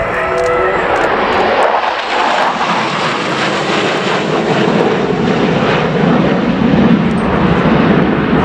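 Jet engines of four F-16 fighters flying past in close formation: a loud, steady roar that swells as the formation comes nearer and is loudest about seven to eight seconds in.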